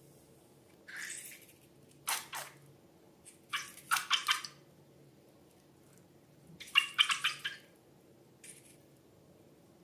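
Slime being squished and worked, wet sticky crackling in several short bursts with pauses between them.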